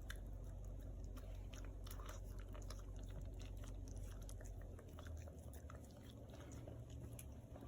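Small dogs licking and chewing peanut butter: faint, irregular wet clicks and smacks of tongues and jaws.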